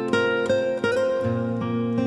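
Background music: a plucked acoustic guitar picking out a melody, a new note about every third of a second.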